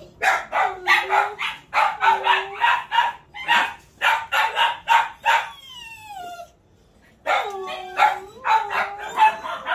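Old dog whining and yelping excitedly: a rapid run of short, high yelps, about three or four a second, then a long falling whine about halfway through. After a short pause, another run of yelps follows.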